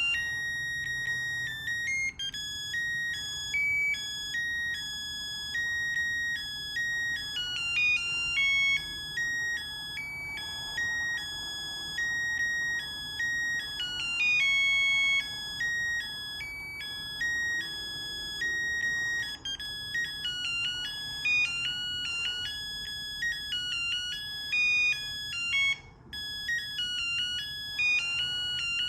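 Ringer of a Panasonic KX-TG210 cordless phone handset playing a melody ringtone: a simple electronic tune of short, high beeping notes that step up and down in pitch.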